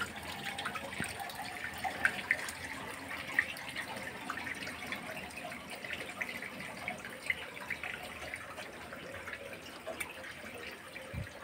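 Water draining out of the bottom outlet of a plastic catfish-rearing bucket, pouring steadily and splashing onto the floor, with scattered drips as the bucket is nearly empty.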